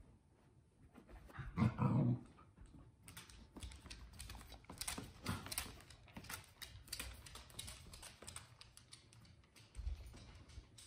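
A dog vocalizes briefly about two seconds in. Then dog claws click rapidly and unevenly on a hardwood floor for several seconds as the dog trots about, with a low thump near the end.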